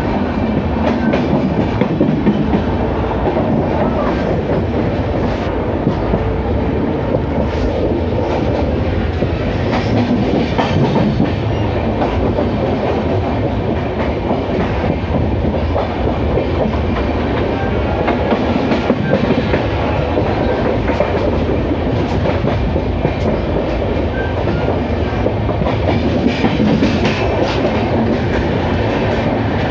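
Passenger train running along the track: a steady rumble of wheels on rail, with the clickety-clack of scattered sharp clicks.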